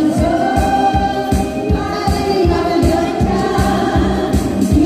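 A group of women singing a trot song in unison through handheld microphones, over an amplified backing track with a steady drum beat.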